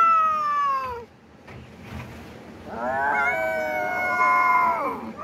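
Cat yowling: two long drawn-out calls, the first falling in pitch and ending about a second in, the second starting near the middle, held level, then falling away near the end. The kind of yowl a cat gives when squaring off against another cat.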